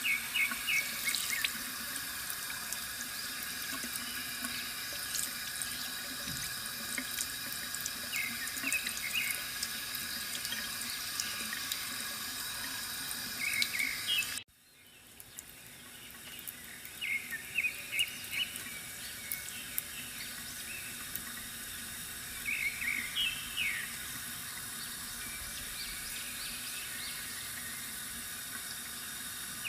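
Water trickling steadily from a bamboo fountain, with short runs of bird chirps every few seconds. About halfway through the sound cuts out abruptly and fades back in.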